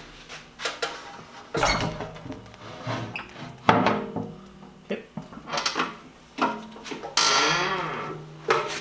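Metal bulwark plate and a shop-made bending fixture knocking and clattering as the plate is handled and lifted out after bending: a string of separate knocks, with a longer scraping slide about seven seconds in.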